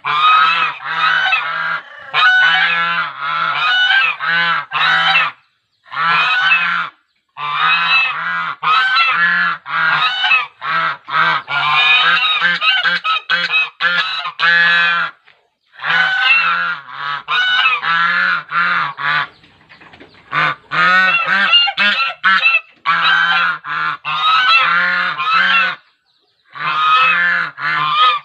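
A group of swans calling: many overlapping nasal, honking calls in bouts, with brief pauses between them.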